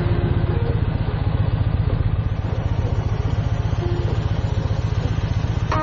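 Motorcycle V-twin engine, the Yamaha XV1900 Midnight Star's, running with a steady, rapid low beat.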